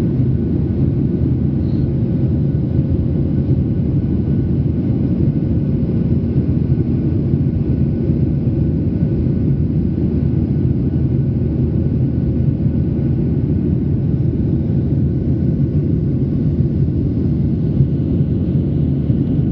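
Steady in-flight cabin noise of a Boeing 737-800 from a seat over the wing: the even low rumble of its two CFM56-7B engines and rushing air, with a faint steady hum on top.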